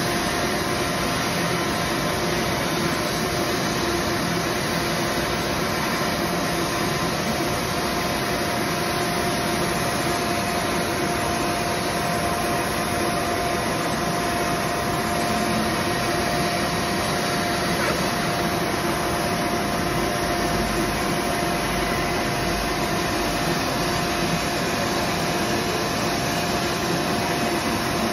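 Hot air PVC welding machine running while welding sheet: a steady rush of blown air with a constant tone in it and no pauses.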